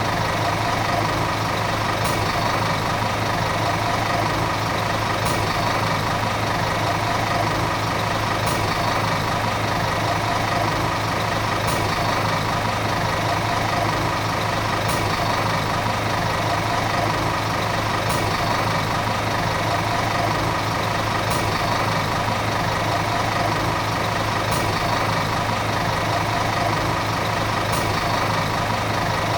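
Volvo city bus diesel engine running steadily at a constant speed, its pitch unchanging, with a faint tick about every three seconds.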